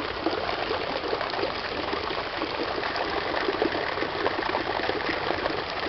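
Steady rush of splashing water with many small rapid splashes.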